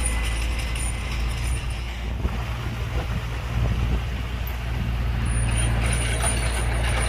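Heavy diesel engine of earthmoving machinery running steadily, growing louder in the last couple of seconds, with a thin high whine joining about five seconds in and a few faint clicks and clanks.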